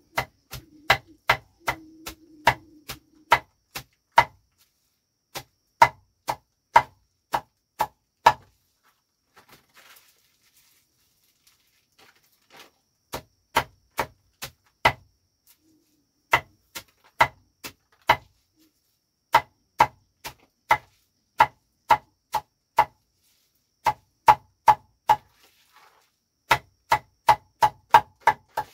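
A blade chopping a heap of leafy green vines against a wooden block: sharp, evenly spaced chops about two a second, in runs broken by a pause of a few seconds about a third of the way through and a shorter one near the end.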